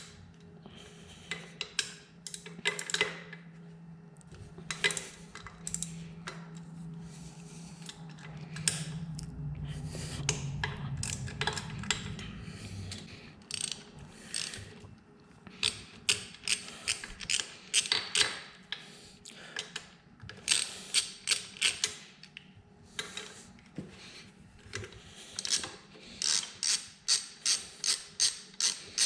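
Hand ratchet clicking in bursts as it backs out engine head bolts, the clicks coming in a quick even run of about three a second near the end. A low steady hum runs underneath for the first twelve seconds or so.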